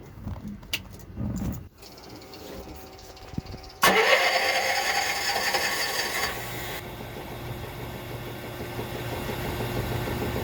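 Kohler 5ECD generator engine starting suddenly about four seconds in, after a few faint clicks, then running steadily with a constant hum.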